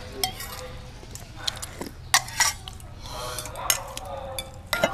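Eating utensils clinking against small stainless steel bowls as noodle soup is eaten: a handful of sharp, separate clinks with a short ring, spread across the few seconds.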